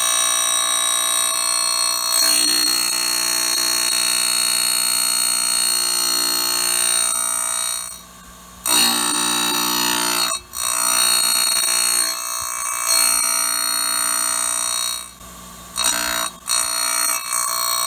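Surface grinder wheel grinding the splines of a hardened steel tractor shaft, a loud steady high-pitched screech. It drops away briefly a few times in the second half as the wheel leaves the work.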